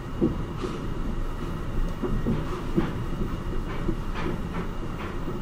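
Kobe Port Liner rubber-tyred automated people-mover train running along its elevated guideway, heard from inside the car: a steady low rumble with scattered irregular clicks and knocks.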